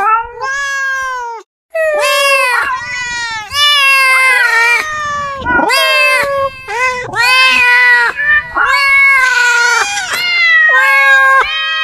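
Domestic cats meowing, a string of about a dozen loud, drawn-out meows one after another, each rising and then falling in pitch.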